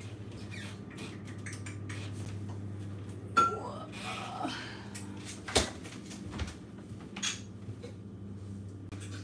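A few sharp clinks and knocks as a refrigerator is opened and items inside are handled. The loudest is about three and a half seconds in, with others near five and a half and seven seconds, over a steady low hum.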